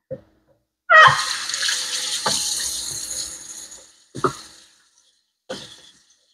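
Kitchen faucet turned on about a second in, water running into a stainless steel sink and splashing over hands being washed. The splashing trails off after about three seconds, with two short splashes later.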